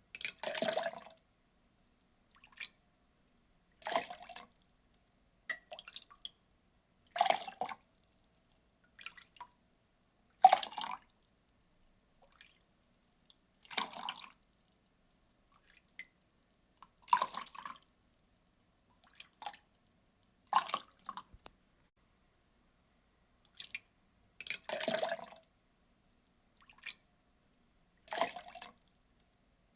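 Water being poured in short splashes, each about a second long, with a larger splash roughly every three seconds and fainter drips between.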